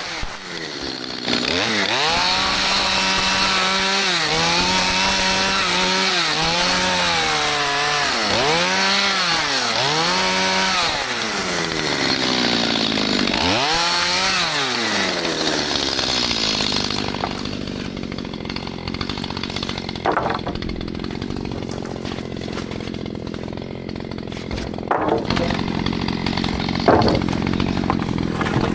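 Stihl MS211 two-stroke chainsaw revving up and down repeatedly while cutting small trees, then dropping to a steady idle about halfway through. A few sharp knocks come during the idle.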